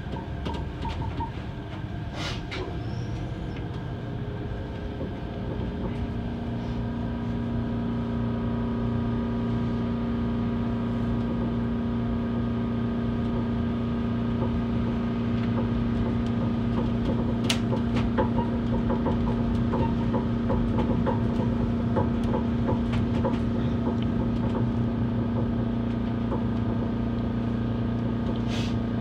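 Chiba Urban Monorail suspended train running along its overhead track, heard from inside the car: a steady running rumble with a low drive hum. A few seconds in, a held mid-pitched tone sets in and the sound grows louder, with a few light clicks along the way.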